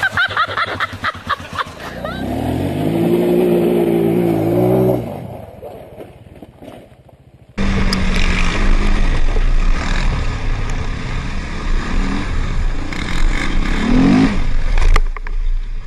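Quad bike (ATV) engines. Quick clattering knocks in the first two seconds, then an engine revs up and holds for about three seconds before dropping away. From about eight seconds in a quad runs steadily under wind noise on a helmet camera, with a brief rising rev near the end.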